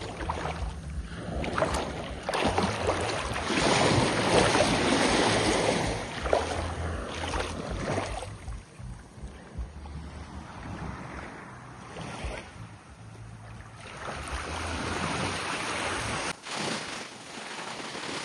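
Sea waves breaking and washing up on a beach, rising and falling in surges, with wind buffeting the microphone as a low rumble. The surf is loudest in the first half, and the wind rumble drops out abruptly near the end.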